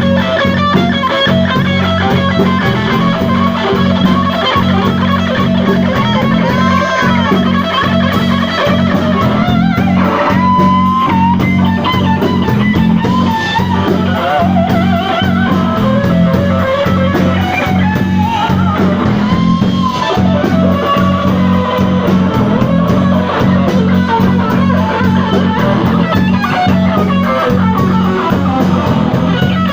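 Live blues band playing: electric guitar with bent notes over a steady bass line and drums.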